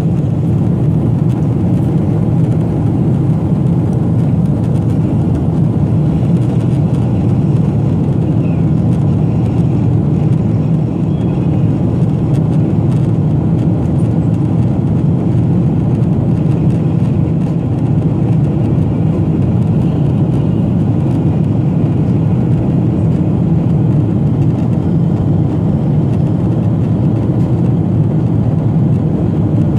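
Steady jet airliner cabin noise, the engines and rushing airflow heard from inside the cabin as a deep, even rumble.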